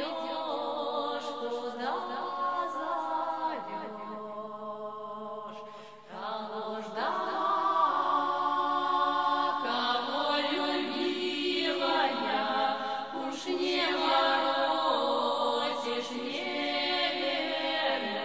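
Vocal music: chant-like singing in long held notes, in phrases of a few seconds each, with a short dip about six seconds in.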